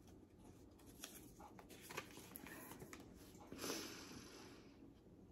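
Faint handling noises from a paper checklist card: a few soft clicks and taps, and a brief paper rustle about three and a half seconds in.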